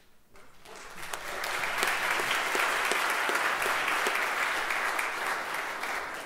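Congregation applauding. The clapping builds over the first second or so, holds steady, then fades away near the end.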